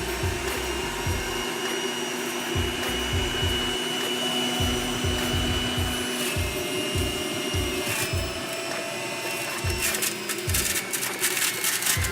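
Electric juicer motor running steadily while juicing spinach, with a rapid run of crackling clicks about ten seconds in.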